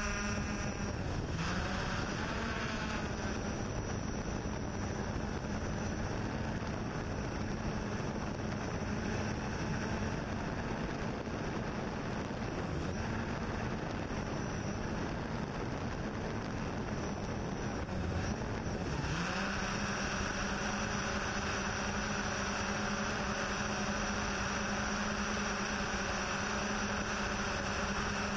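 Yuneec Typhoon H hexacopter's rotors humming steadily with wind noise. The pitch dips and climbs back about a second in and again about nineteen seconds in as the motors change speed.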